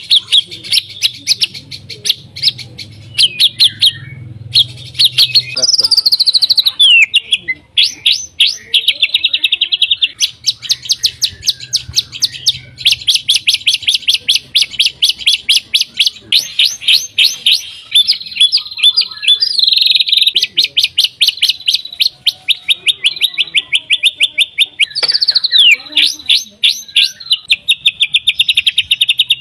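White-rumped shama singing: long runs of rapid, sharply repeated notes like a rattle, broken by a couple of sweeping whistled phrases.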